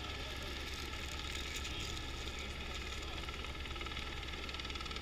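Steady engine drone with a low hum, unchanging throughout, under faint voices.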